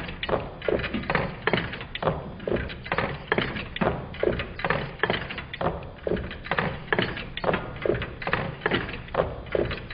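Meccano-built twin-cylinder Stirling engine running, its displacers knocking as they land at each end of their travel along with the clatter of its Meccano linkage. The knocks come in a steady repeating pattern of several per cycle, a little more than one cycle a second.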